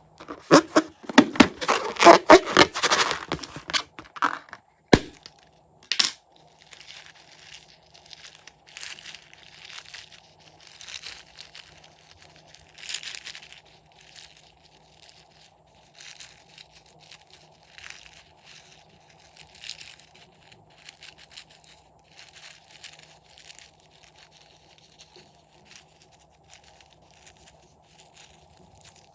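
Slime-making materials being worked by hand: loud dense crinkling and crackling for about four seconds, two sharp snaps about a second apart, then softer, intermittent sticky crackling.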